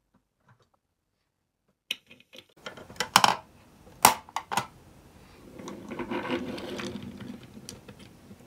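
Small plastic toys being handled: after a quiet start, a run of clicks and knocks begins about two seconds in, with two loud clacks a second apart. A softer scraping and rubbing stretch follows.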